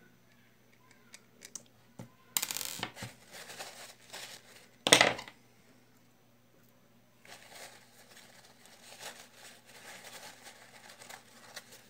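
Small metal screws and reel parts handled on a tabletop: scattered light clicks and rustling, with a sharp metallic clink about five seconds in.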